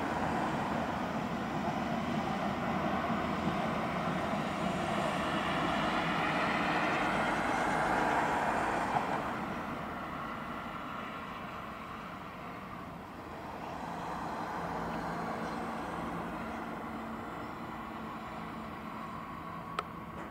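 Boeing 767-400ER jet on approach flying past overhead. The broad roar of its engines swells to a peak about eight seconds in and then fades away. A brief click comes near the end.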